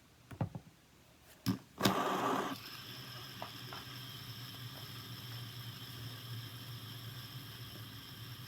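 A few clicks, then a louder rush as a fidget spinner is set going on a hard surface, after which it spins with a steady whir.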